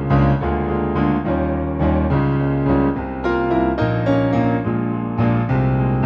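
Solo piano music: chords over low bass notes, a new chord struck about once or twice a second.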